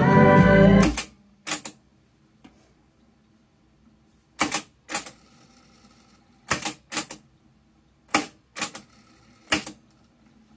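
Music playing from the Akai GXC-725D cassette deck cuts off about a second in. Then come the sharp mechanical clunks of its piano-key transport buttons being pressed and released, mostly in pairs about half a second apart, around eight clicks in all.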